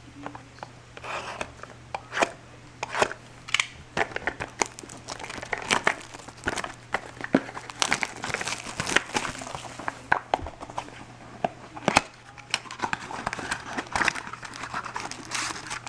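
Sealed box of trading cards being unwrapped: plastic wrap tearing and crinkling, with irregular crackles and rustles as the box and its packs are opened.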